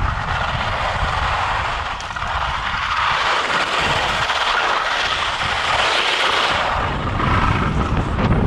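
Skis hissing steadily as they slide over wind-packed snow, with wind rumbling on the microphone; the rumble eases in the middle and comes back near the end.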